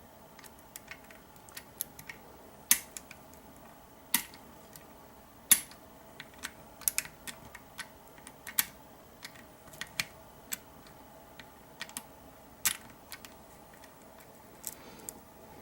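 Irregular light metallic clicks and ticks of a lock pick working the pins inside a Kwikset SmartKey deadbolt, held under a pry-bar tension tool. Among the many faint ticks are a handful of sharper, louder clicks, over a faint steady hum.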